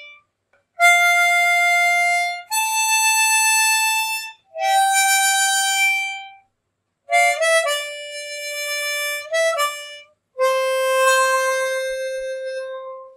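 Background music: a slow solo melody of long held single notes, broken by short pauses between phrases, with a quick run of short notes around the middle and a long low note near the end.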